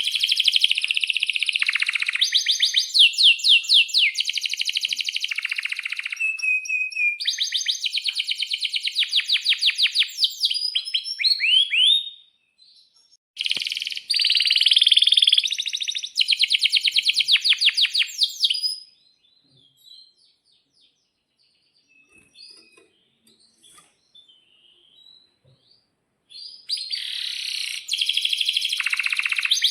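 Male domestic canary singing long rolling trills and rapid chirped phrases, high-pitched. The song breaks off briefly about twelve seconds in and resumes, then drops to a few scattered soft chirps for several seconds before the full trilling starts again near the end.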